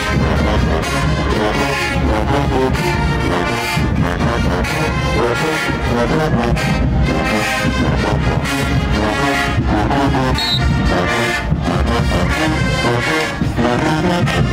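Marching band playing loudly, with a full brass sound.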